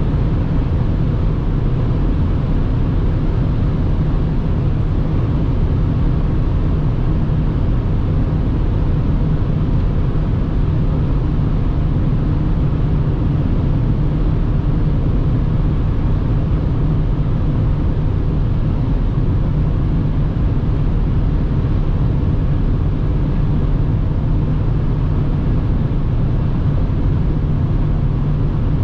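Steady in-cabin drive noise of a BMW X5 E70 3.0d straight-six diesel SUV cruising at about 200 km/h on a motorway: a low, even rumble of tyres, wind and engine that holds unchanged throughout.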